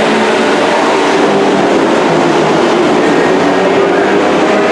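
Engines of several dirt-track race trucks running at speed together, a loud, steady mix of engine notes.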